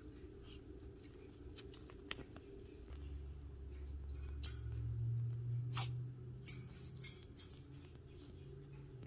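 Scattered soft clicks and scratches of Shih Tzu puppies' paws and claws moving about on the pen floor and pads, with a few sharper clicks near the middle. A low rumble comes in about three seconds in and fades about four seconds later.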